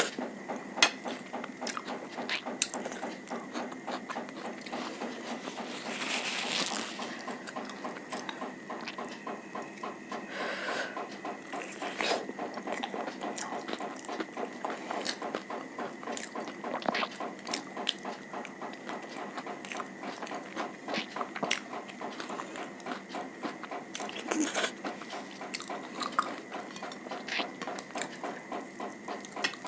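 Close-miked eating sounds: a person chewing and biting food, with many wet mouth clicks and a few louder crunches.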